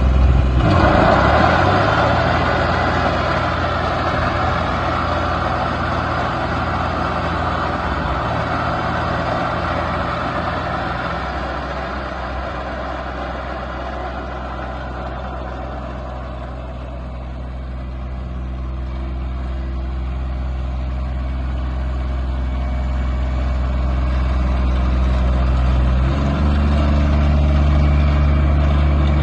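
Kubota GR2100 ride-on mower's small diesel engine running steadily. It grows quieter through the middle and louder again, and its pitch steps up slightly near the end.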